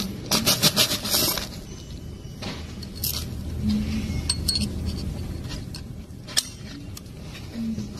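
Loose steel bearing balls and steel bearing rings clinking and jangling together as they are handled, with a quick flurry of clinks in the first second or so and scattered single clicks after.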